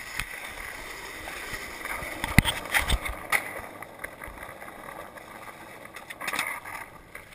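Skateboard wheels rolling on rough asphalt, broken by a few sharp clacks of the board between about two and a half and three and a half seconds in, the first the loudest, and another smaller knock near the end.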